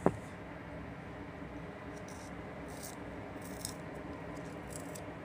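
A small eyebrow pencil and its packaging handled by hand: one sharp click at the very start, then a few faint, short scratchy rustles, over a steady low background hum.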